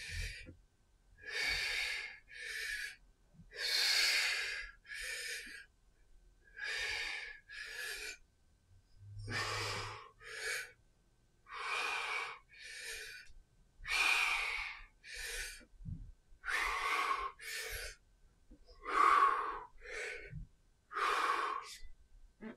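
A man breathing hard from the exertion of clubbell swings: a steady rhythm of paired inhales and exhales, about one pair every two to three seconds.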